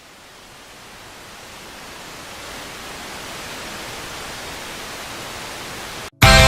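A steady hiss of noise that slowly swells in level, cutting out abruptly just after six seconds, when loud rock music with heavy drums and distorted guitar starts.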